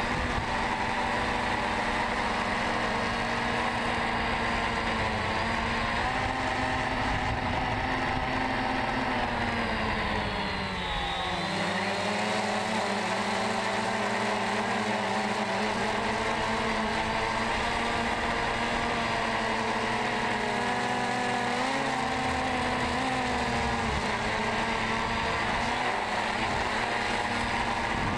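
DJI Phantom 2 quadcopter's electric motors and 9-inch carbon-fibre propellers whining steadily in flight, heard from on board the drone. The pitch dips and comes back up about ten seconds in.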